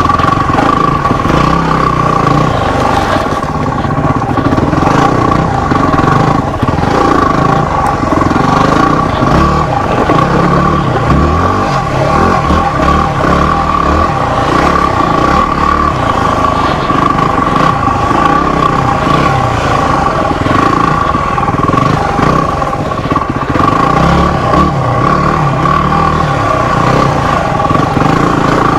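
250 cc single-cylinder dual-sport motorcycle engine running on a rough trail, the throttle rising and falling, with clattering from the bike over rocks and bumps.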